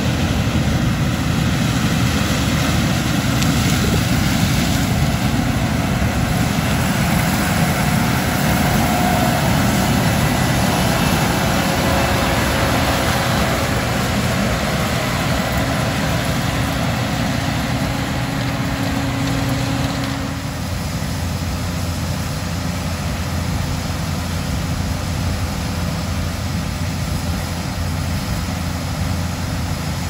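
Case IH 2388 combine's diesel engine and threshing machinery running steadily as it harvests corn. About two-thirds through, the sound drops to a lower, steadier hum.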